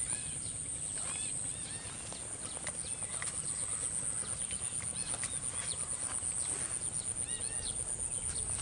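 Insects trilling steadily in a high, fast-pulsing tone, with short chirping bird calls coming and going over a low rumble.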